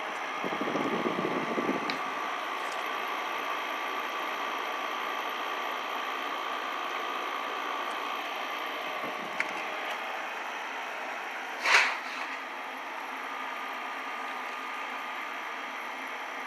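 Midea EasyCool inverter window air conditioner running: a steady fan whoosh with a faint hum, joined by a louder rumble in the first two seconds and a single sharp sound about twelve seconds in.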